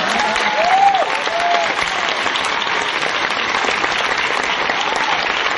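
Audience applauding, with a few cheering voices over the clapping in the first two seconds.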